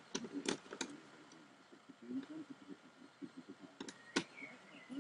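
Sharp clicks and taps of a screwdriver and small screws against an HP G61 laptop's plastic case during disassembly: three in quick succession in the first second, then two more about four seconds in.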